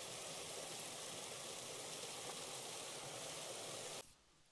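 Small creek waterfalls splashing into a rock pool: a steady rushing hiss of water that cuts off suddenly about four seconds in.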